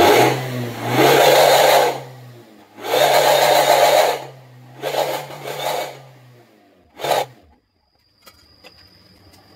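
Toyota Avanza Veloz automatic with a bolt-on 'suos ngorok' growler tip in its exhaust, revved in bursts: three revs of about a second each and a short blip about seven seconds in, each giving a loud growl from the tip over a steady low engine note.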